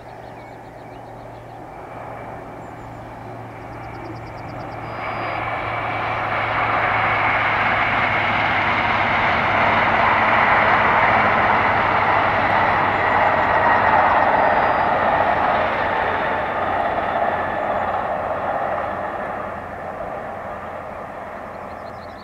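First Great Western High Speed Train (InterCity 125) passing at speed. Its sound builds over the first several seconds, is loudest through the middle, and fades toward the end.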